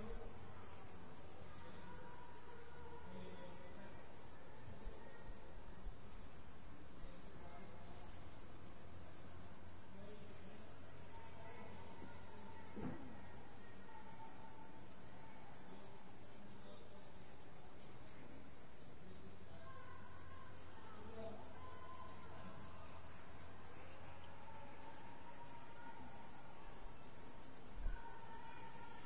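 Crickets chirring in a steady, high-pitched drone that breaks off briefly a few times, over a faint low hum.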